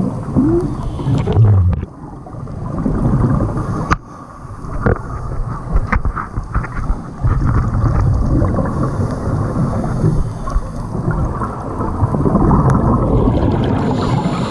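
Muffled underwater rumble with the bubbling of scuba regulator exhaust, swelling and easing every few seconds, with brief lulls about two and four seconds in and a few sharp clicks.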